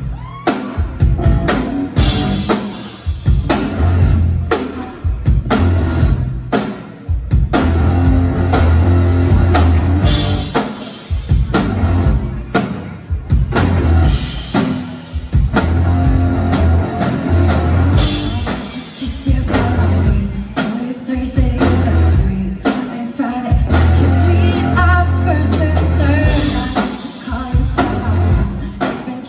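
Live rock band playing: drum kit, two electric guitars and bass guitar, with singing.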